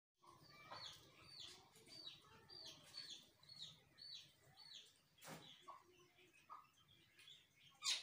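Common mynas calling: a run of short, repeated high chirps, about two a second. Two sharp clicks, the louder one near the end, stand out above them.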